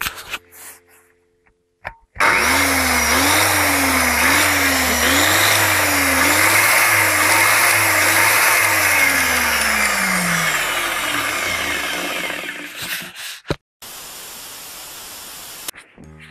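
Electric angle grinder switched on for a test run after its faulty power switch was repaired: the motor starts abruptly about two seconds in, its hum wavering up and down in speed, then is switched off and winds down with a falling whine. It ends with a quieter steady hiss.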